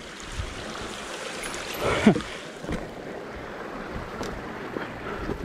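Mountain bike running down a dirt downhill trail: steady wind noise on the action camera's microphone, with the tyres and bike rattling over the ground. A short sound falling in pitch cuts through about two seconds in.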